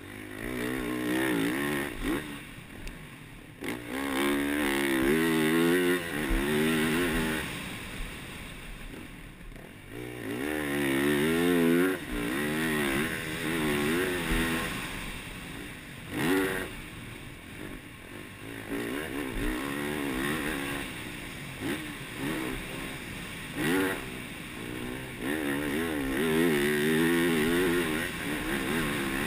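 Yamaha YZ450F's single-cylinder four-stroke engine revving hard in repeated bursts, pitch climbing and falling as the rider opens and closes the throttle and shifts. The engine rises and drops about seven times.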